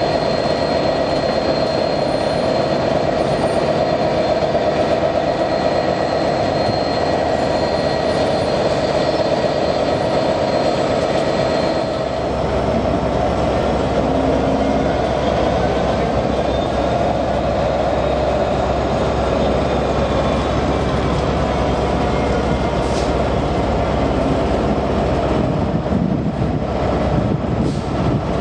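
Class 67 diesel-electric locomotive's two-stroke V12 engine running as the locomotive moves slowly, with a steady whine above the engine note; a deeper rumble comes in about twelve seconds in.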